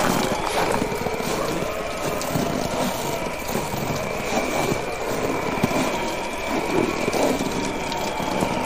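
Wood bonfire burning with frequent irregular crackles and pops over a steady rushing noise of wind.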